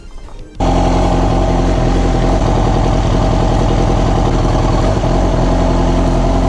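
Yamaha R6 inline-four engine idling steadily. It cuts in sharply about half a second in after a brief quieter moment. The engine has a misfire caused by a faulty coil pack on cylinder four.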